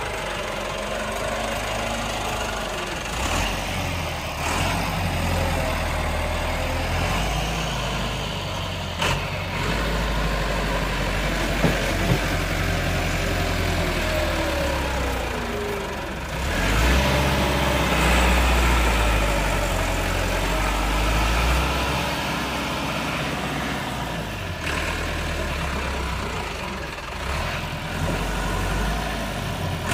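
Massey Ferguson 385 tractor's four-cylinder diesel engine labouring under heavy load as it hauls a brick-laden trolley through deep sand, its revs rising and falling. It gets louder a little past halfway, then eases back.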